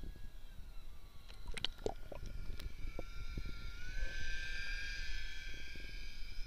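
Steady high whine of an RC model submarine's electric motor over a low water rumble. The whine drops in pitch about a second in and rises again near four seconds, where a hiss of rushing water joins it. A few sharp clicks come around two seconds in.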